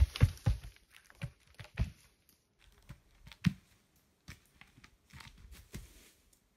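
Large firewood rounds tumbling down a steep slope, a series of heavy thuds and knocks as they bounce and land, loudest and closest together in the first two seconds, then scattered knocks until near the end.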